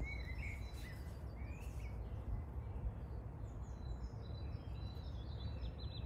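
Woodland ambience: small birds chirping and calling on and off over a steady low background rumble.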